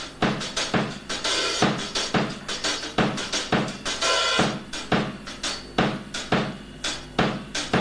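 Drum kit played with no other instruments: a quick run of bass drum and snare strikes, with cymbal crashes ringing out about a second in and again about four seconds in.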